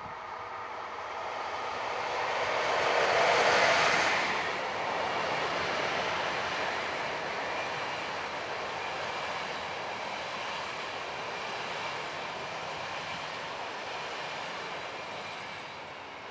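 Passenger train passing: a red SBB electric locomotive hauling ÖBB coaches. The locomotive's pass is loudest about three and a half seconds in, followed by the steady wheel-on-rail noise of the coaches rolling by, which fades near the end.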